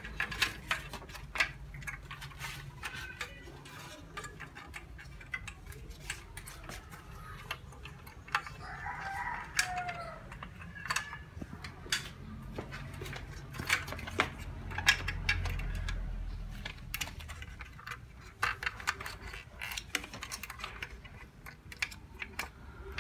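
Scattered clicks and knocks of hard plastic being handled as the parts of a Dyson V10 wall dock are fitted together, with rumble of hands on the microphone. About nine seconds in, a drawn-out call rises and falls for about two seconds.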